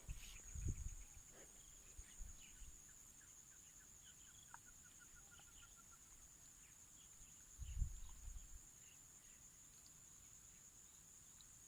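Faint outdoor rural ambience: a steady high-pitched drone with scattered bird chirps, including a quick run of repeated notes. There is a low thump at the start and a few more about eight seconds in.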